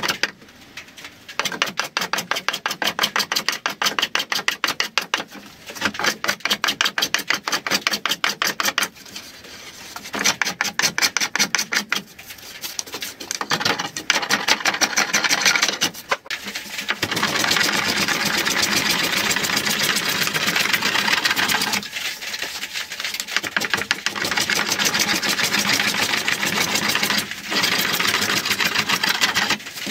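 A saw ripping lengthwise through a thick wooden board, in bouts of fast, even strokes broken by short pauses.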